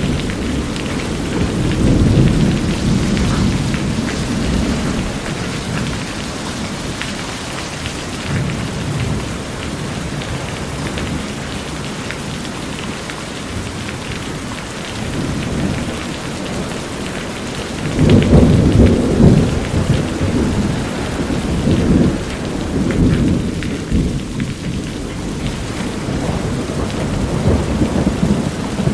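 Steady heavy rain on a corrugated metal roof, with rolls of thunder rumbling low underneath. The thunder swells up about two seconds in and most strongly around eighteen to twenty seconds, with smaller rolls near the end.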